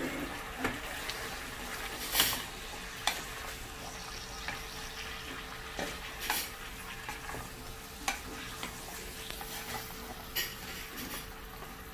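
Wooden spoon stirring diced carrots, chicken and chicken liver sautéing in a non-stick pot, with a steady sizzle and irregular knocks of the spoon against the pot, about eight of them, the loudest about two seconds in.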